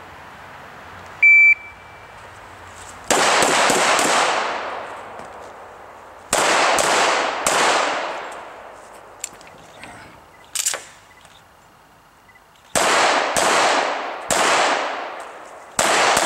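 Shot timer gives a single start beep about a second in, then a handgun fires in short strings of two or three shots separated by pauses, each shot ringing out with an echo that dies away over about a second.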